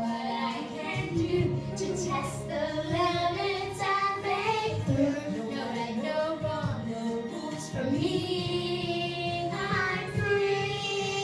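Two young girls singing together into a handheld microphone, over accompanying music.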